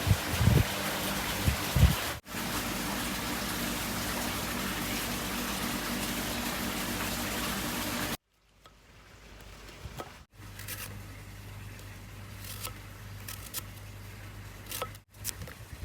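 Steady rush of running water, with a few low thumps in the first two seconds. It cuts off abruptly about eight seconds in, leaving a low hum and scattered light clicks.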